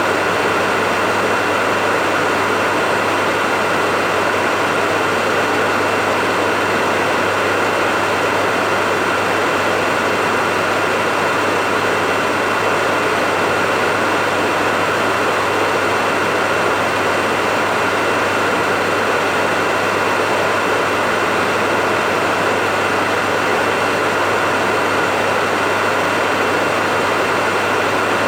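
Hair dryer running steadily: an even rush of blown air with a low motor hum and a thin high whine, unchanging throughout.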